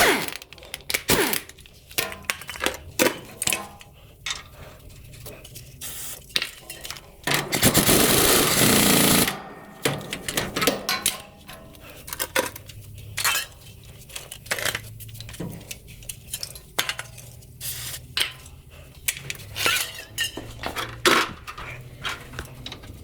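Metal tools and car parts clinking and knocking irregularly during shock absorber replacement work, with one loud burst of noise about two seconds long a third of the way in.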